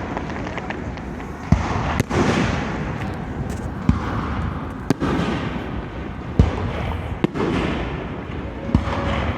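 Aerial fireworks display going off: about seven sharp booms, roughly one every second or so, over a continuous rumble of further bursts.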